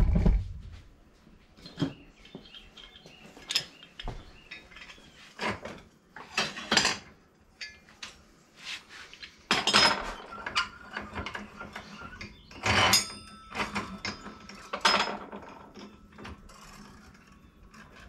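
Irregular metal clanks, scrapes and rattles of hand tools and bicycle crank parts being worked in a bench vise, opening with a heavy thump; one clang about 13 seconds in rings briefly.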